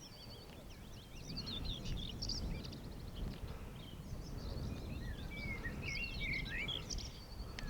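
Songbirds singing in a continuous stream of quick chirps and warbling trills, over a low rumble of wind on the microphone.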